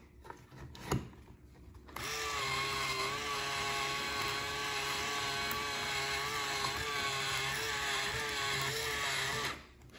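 KiwiCo Eureka Crate electric pencil sharpener, a small motor-driven kit, running and grinding a pencil. It starts about two seconds in with a slightly wavering hum under the grinding and stops near the end. A single knock comes about a second in.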